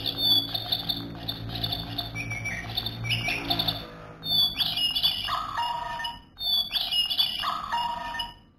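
Sound-activated toy songbird in a plastic cage playing imitation birdsong, bright chirps and trills in several phrases, with short breaks about four and six seconds in. It stops just before the end.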